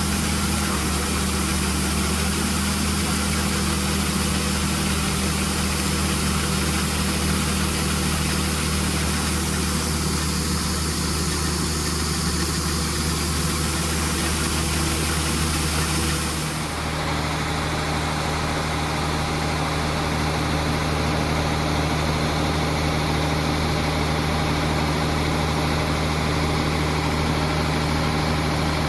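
Combine harvester running steadily, its engine and machinery a constant hum with a hiss above. About sixteen seconds in the hiss drops away and the hum changes slightly.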